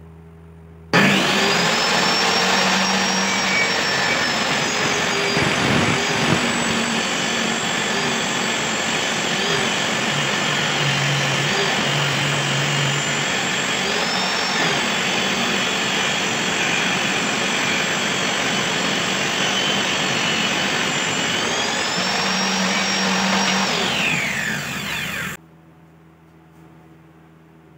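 Shop-built table saw running and ripping a length of wood along the fence: a steady, loud motor-and-blade noise with a high whine. It starts abruptly about a second in, the pitch shifts near the end as the cut finishes, and it cuts off abruptly.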